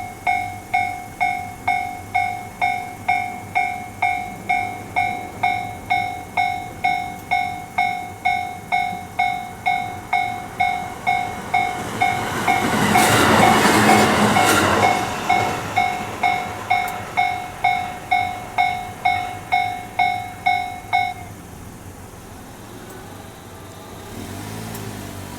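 Japanese railway level-crossing alarm sounding its repeating electronic ding, about one and a half strikes a second. A train passes through the crossing for about three seconds near the middle. The alarm cuts off about 21 seconds in, leaving a quieter steady background.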